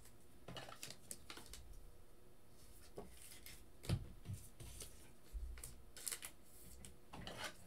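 Faint rustling and light clicks of trading cards being picked up and slid across a tabletop, with a sharper knock about four seconds in.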